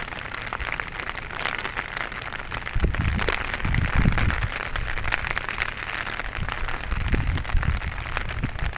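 Rain falling, a steady dense patter of drops, with brief low rumbles about three seconds in and again near the end.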